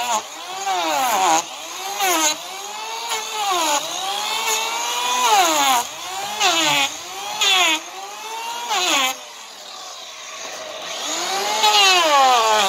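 Electric hand planer cutting an overgrown draft horse hoof in repeated passes. Its motor whine rises and drops with each pass as the blades bite into the hoof, with short loud rasping bursts of cutting, the longest near the end.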